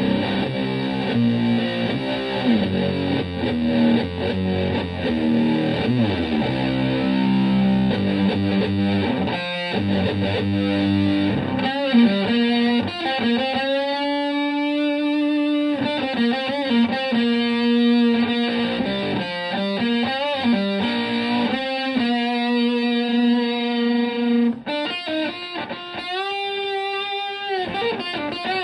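Stratocaster electric guitar played through a Marshall Supa MKI (Supa Fuzz) prototype fuzz pedal into a Fender Twin Reverb-style amp, with a fuzzy, distorted tone. Busy riffing gives way about halfway through to long sustained lead notes with bends and vibrato.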